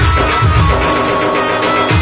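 Live Indian devotional band music: a keyboard melody over a steady drum beat from a dappu frame drum and an electronic drum pad. The low drum beats drop out for about a second in the middle while the keyboard holds a note, and come back at the end.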